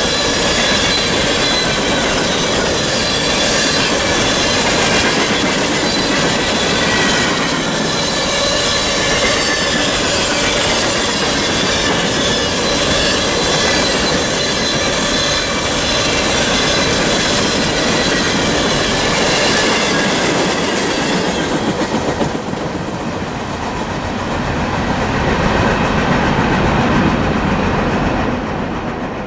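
Empty coal hopper cars of a freight train rolling past: a steady rumble and clatter of steel wheels on rail, with thin high ringing squeal from the wheels over it. About 22 seconds in the noise drops as the last cars go by, then it swells briefly as a low rumble and fades out.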